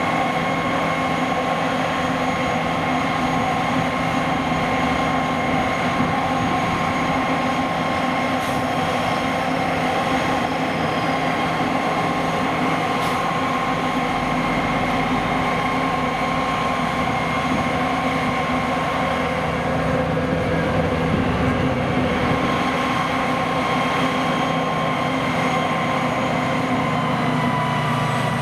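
Heavy farm machinery running steadily, a continuous engine and drive noise with a steady high whine over it that drops slightly in pitch near the end.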